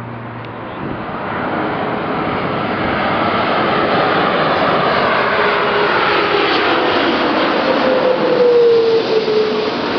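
The Rolls-Royce Trent 772B-60 turbofans of an Airbus A330-200 on landing approach, passing low overhead. The jet noise builds steadily with the engines' distinctive howl, and near the end a howling tone drops in pitch as the aircraft goes by.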